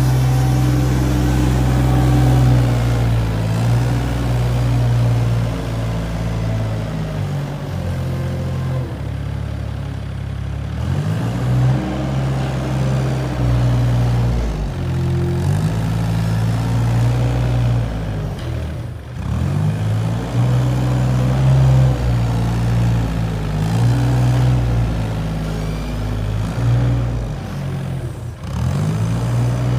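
Compact wheel loader's diesel engine running under load, its pitch rising and falling again and again as the machine pushes manure along the barn alley and backs up.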